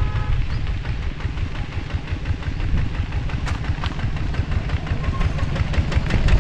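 Engine of a motorised cart running steadily with a repeated low thumping, mixed with the low rumble of wind buffeting the camera microphone as the bike rides along.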